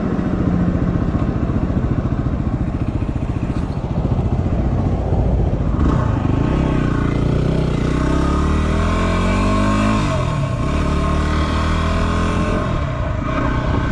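Yamaha WR250R's 250 cc single-cylinder four-stroke engine running under way. Its pitch rises as it accelerates from about six seconds in, drops at a gear change about ten seconds in, then runs steady.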